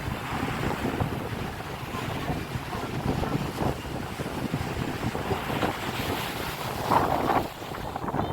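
Wind buffeting the microphone over sea waves washing onto the beach, with a louder burst about seven seconds in.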